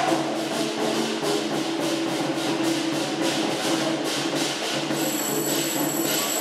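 A DRC1000 diesel railcar idling at the platform with a steady low hum. Over it comes a rapid, even series of ringing strikes, about three a second. A thin high steady tone joins near the end.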